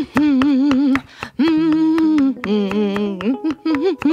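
A woman's voice humming a wavering tune, over a kitchen knife chopping a cucumber on a cutting board in a quick, even rhythm.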